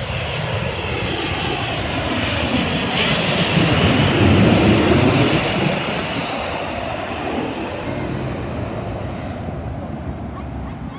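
Twin-engine jet airliner passing low overhead on its landing approach. The engines build to a peak about four seconds in, then fade as it goes by, with a falling whine.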